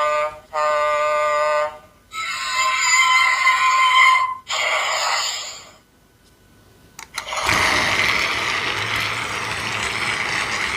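Fisher-Price Talking Diesel toy train playing electronic horn and engine sound effects through its small speaker in several short bursts. About seven and a half seconds in, a steady whir starts as its battery motor drives it along.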